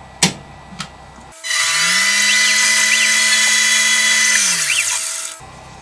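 Small CNC-controlled metal lathe taking a light turning pass to remove burrs from a freshly engraved workpiece. The spindle motor spins up to speed, runs steadily and winds down near the end, with short rising-and-falling whines from the feed motors and a high hiss over the top.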